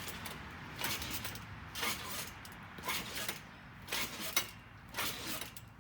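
Trampoline springs and mat creaking in a steady rhythm of about one stroke a second, as someone bounces on it.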